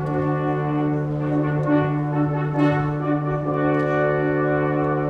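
A brass instrument holding one long, steady low note.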